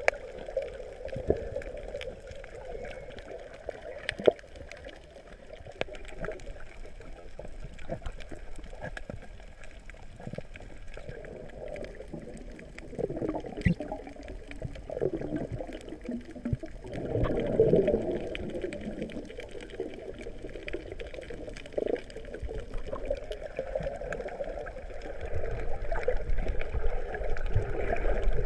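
Underwater sound picked up by a camera below the surface: water gurgling and sloshing, with many scattered sharp clicks. It swells louder a little past the middle and again near the end.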